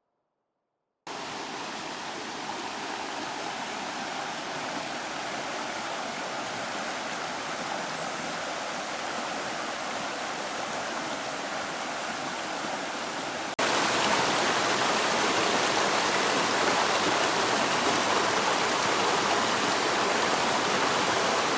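Steady rushing water starting about a second in, then louder after an abrupt cut about two-thirds of the way through.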